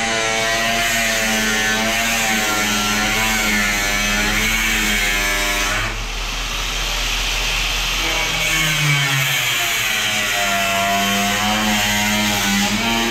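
A grinder with a cutting wheel cuts through the steel quarter panel of a 1962 Chevrolet Impala. Its whine dips and rises as the wheel is loaded, with a short let-up about six seconds in.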